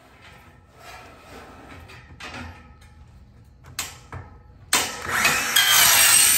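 Cordless circular saw cutting through a metal railing bar. A few quiet handling knocks and two sharp clicks come first, then about two thirds of the way in the saw starts and cuts with a loud, high-pitched screech that is still going at the end.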